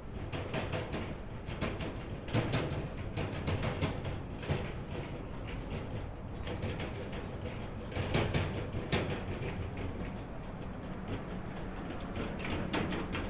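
Small street-cleaning utility truck moving slowly, with irregular rattles and knocks over a steady low hum.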